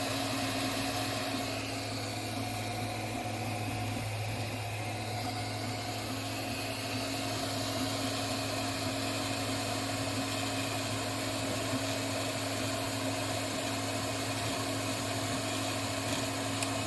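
Anet A8 Plus 3D printer running while it prints the last layers of a calibration cube: a steady hum from its stepper motors and cooling fans.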